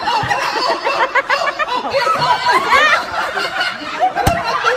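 A group of people laughing and squealing with excited chatter, and one sharp balloon pop about four seconds in.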